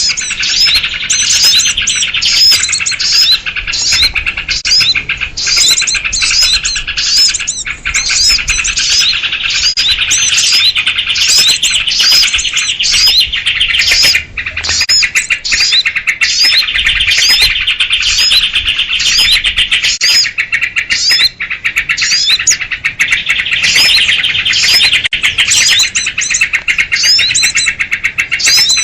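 Dense, unbroken chatter of a noisy flock of small birds, led by sooty-headed bulbuls (kutilang), with many short curved chirps overlapping throughout. It is a bird-lure recording of agitated, noisy birds, used to draw small wild birds in.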